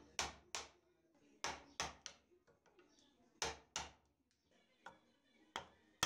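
A wood chisel being struck to chop out a mortise in a timber table leg, squaring up a hole first bored on the drill press. About nine sharp knocks, mostly in quick pairs or threes, each ringing briefly.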